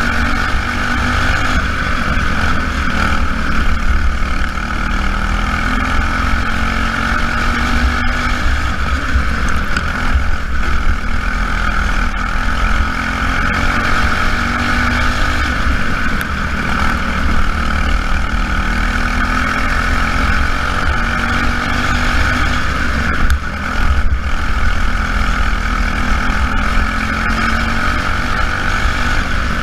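Several small racing engines running laps together in a race, their pitch rising and falling over and over as the cars accelerate and ease off around the track.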